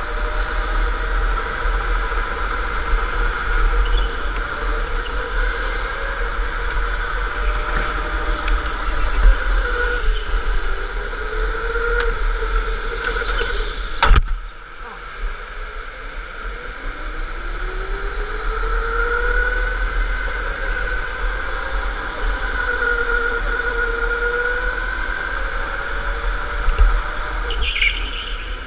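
Onboard sound of an electric indoor go-kart: the motor's whine rising and falling with speed over low rumble. About halfway through comes one sharp knock, after which the whine drops away and then climbs again as the kart speeds back up.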